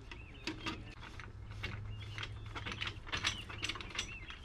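Rapid, irregular metallic clicking and ratcheting of metal tent-frame parts being handled and worked.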